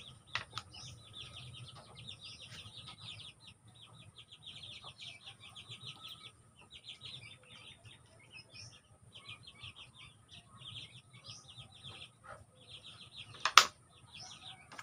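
Young chickens peeping in rapid runs of short, high chirps, with a few faint clicks and one sharp, loud click near the end.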